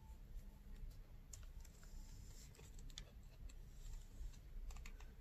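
Faint, scattered clicks and light rustles of a gift box being handled, with its tissue paper and foam insert.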